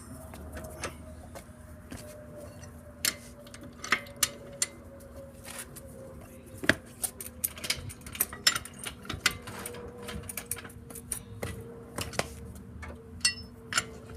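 Irregular metallic clicks and clinks of a car jack being set up and worked under the vehicle, with one sharper clank about two-thirds of the way through. A faint steady hum and a slowly falling faint tone run underneath.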